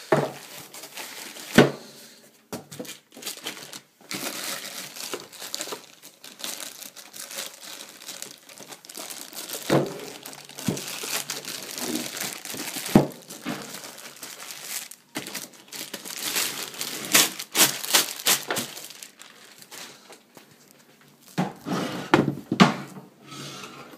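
Plastic and cardboard packaging crinkling and rustling as an amplifier is unpacked from its box, with a few sharp knocks along the way.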